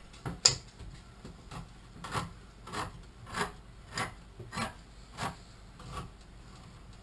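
Hand-held manual can opener cutting around the lid of a metal can, a rasping crunch with each turn of the key. About ten strokes in a steady rhythm, roughly one every half second, stopping about six seconds in.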